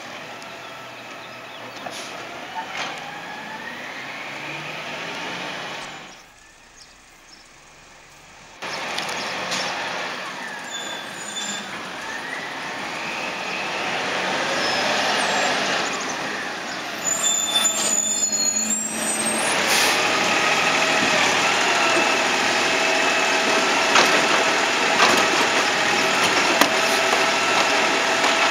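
2021 Peterbilt 520 refuse truck with a New Way Sidewinder automated side-loader: its diesel engine rises and falls in pitch as it pulls up, with air-brake hisses. From about two-thirds of the way in, the engine holds at a raised speed with a steady whine while the hydraulic arm works the cart, with several sharp knocks.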